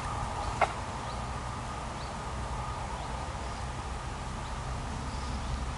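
Outdoor woodland background: a steady low rumble with a faint hum, a few faint bird chirps, and one sharp click about half a second in.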